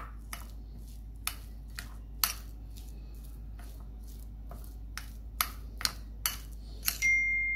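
Metal spoon scraping and clinking against a ceramic bowl as mashed potato, onion and spices are stirred together, in irregular light clicks. Near the end, a sharper clink is followed by a clear, high ringing tone that lingers.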